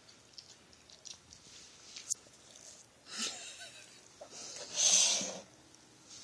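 Two breathy huffs of air, a short one about three seconds in and a louder, longer one about five seconds in. A sharp click about two seconds in, likely a metal fork tapping the plastic bowl.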